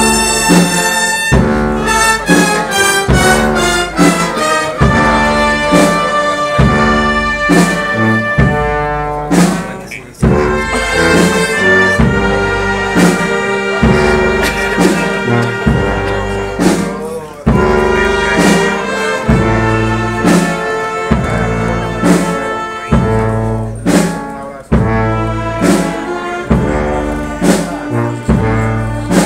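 Brass band music with held notes and repeated drum strikes.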